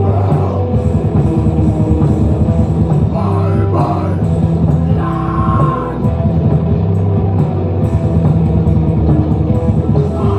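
A metal band playing live at full volume: distorted guitars and bass over pounding drums, dense and continuous with a heavy low end.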